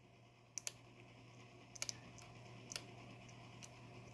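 About half a dozen faint, sharp metallic clicks, some in close pairs, as a lock pick works the pins of a Medeco 51S padlock under tension.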